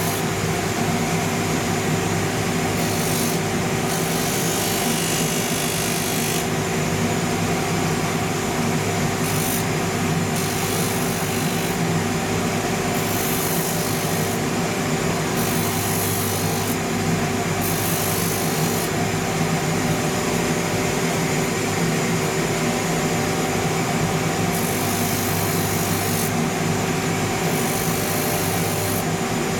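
Shoe-finishing machine's rotary sanding wheel running steadily, with a rasping hiss that comes and goes several times as the leather outsole is pressed against the worn sandpaper and lifted off. This is the smoothing pass that takes out the coarse scratch lines left by new No. 180 paper.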